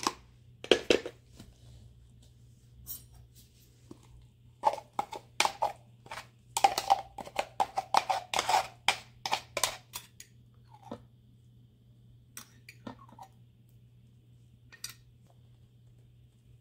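Spatula scraping and knocking against a small food-chopper cup as chopped herb paste is emptied into a mixing bowl: a run of quick taps and scrapes, busiest in the middle, with a few scattered taps afterwards.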